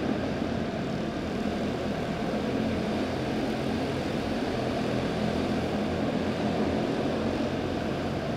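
Field of Junior Honda quarter midget race cars running at racing speed, their small Honda engines making a steady, continuous drone.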